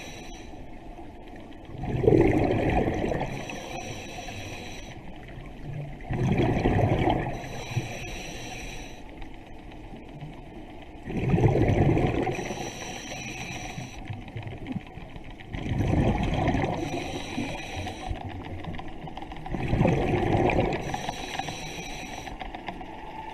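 Water sounds swelling and fading in a regular rhythm, a loud surge about every four to five seconds over a steady wash.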